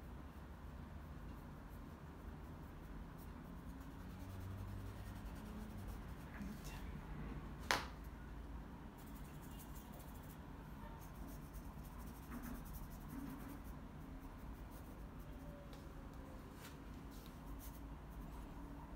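Faint scratching and dabbing of a paintbrush on canvas over a low room hum, with one sharp click about eight seconds in.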